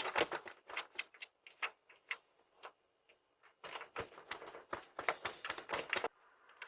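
Irregular run of sharp clicks and taps, thinning out after the first second or so, then a second, denser run from about four seconds in that cuts off abruptly near the end.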